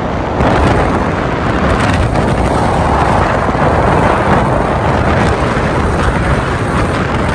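Wind buffeting the microphone on a moving vehicle: a loud, steady rush with no clear tone, swelling a little about half a second in.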